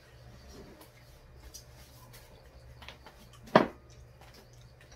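One sharp knock or thump about three and a half seconds in, with a few faint small clicks and knocks around it.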